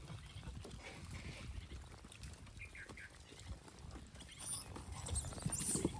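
Troop of gray langurs moving and feeding on bare ground: scattered rustling and scuffling, with a few short high squeaks around the middle. The activity grows louder near the end.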